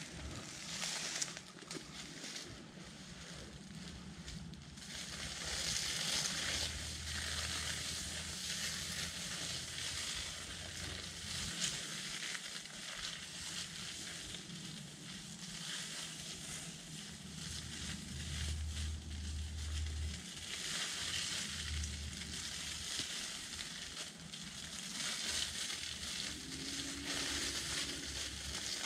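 Dry fallen leaves crackling and rustling, swelling and fading in waves, with a low rumble now and then.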